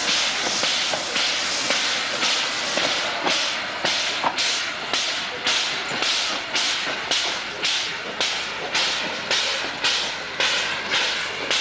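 U47 Mallet narrow-gauge steam tank locomotive pulling away, its exhaust chuffing about twice a second over the hiss of steam escaping at the cylinders. The chuffs grow sharper and more distinct from about four seconds in.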